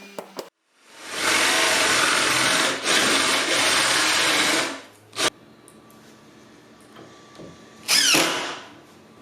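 Power drill running steadily for about three and a half seconds, then a sharp click and a short second burst near the end.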